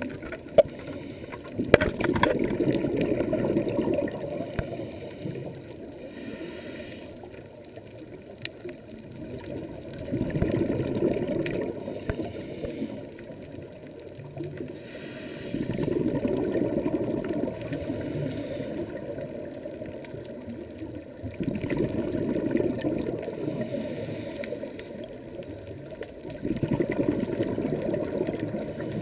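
A scuba diver's exhaled bubbles gurgling from the regulator, heard underwater through a GoPro dive housing. The bubbling comes in five swells several seconds apart, one per breath, with quieter gaps between; there are a couple of sharp clicks near the start.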